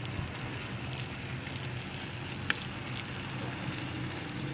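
Water poured from a kettle onto a metal ladle, running off over steaming rice in a large pot, as a steady hiss with a low hum underneath. One sharp click about two and a half seconds in.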